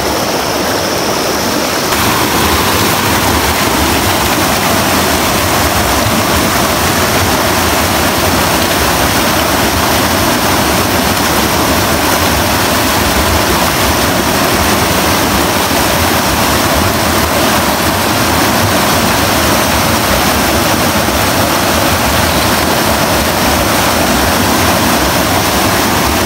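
Fast stream water rushing over rocks in a small rapid, a steady loud wash of white water close to the microphone.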